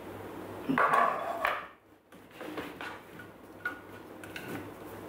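A spatula scraping and tapping inside a stainless steel Thermomix mixing bowl as the sides are scraped down, with a short, louder sound about a second in.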